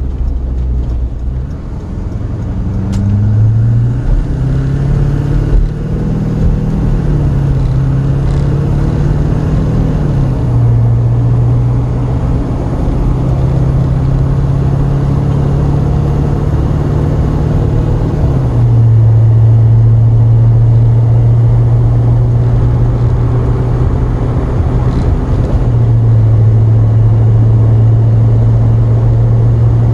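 Duramax diesel pickup heard from inside the cab while it accelerates. The engine note rises in steps and drops back twice as the truck shifts up, then holds a steady cruise that grows a little louder about two-thirds of the way through. The freshly rebuilt 11.5-inch AAM rear axle runs with no gear whine.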